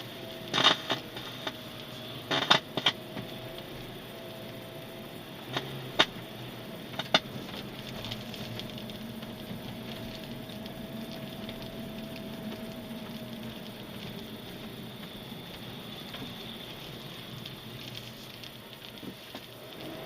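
A BMW car with its engine idling under a faint steady tone. In the first seven seconds there are several short sharp bursts: one, then a quick cluster of three, then two single ones.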